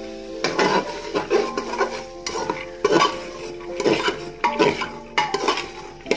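Steel ladle stirring and scraping chickpeas and peas around an aluminium pressure cooker, in repeated strokes two or three a second, with more chickpeas tipped in partway through.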